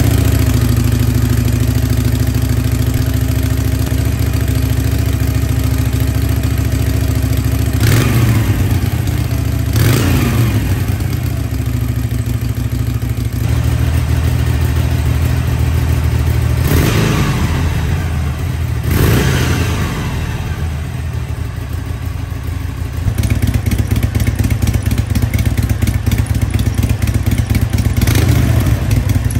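Harley-Davidson Sportster 883's air-cooled V-twin idling on its stock exhaust just after a cold start, with four short throttle blips, two about eight and ten seconds in and two more about seventeen and nineteen seconds in.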